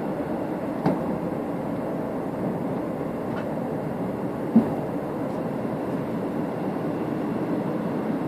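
A passenger train running along the line, heard from inside the carriage: a steady rumble of wheels on track, with two sharp knocks, one about a second in and a louder one about four and a half seconds in.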